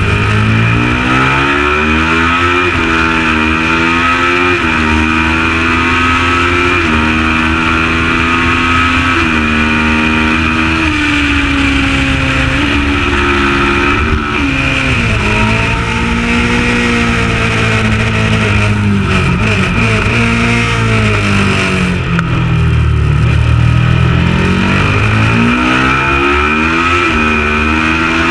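Kawasaki ER650 parallel-twin racing motorcycle engine under hard acceleration. The revs climb and drop back in steps as it changes up through the gears, fall away twice as it slows, then pick up again.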